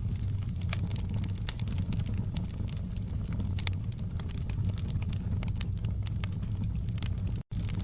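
Wood fire crackling: frequent sharp pops and snaps over a steady low rumble of burning flames, with a split-second dropout near the end.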